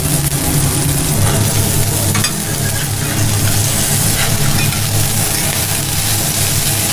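Beef burger patties sizzling on a flat-top griddle, with a few scrapes of a metal spatula against the steel and a low steady hum underneath.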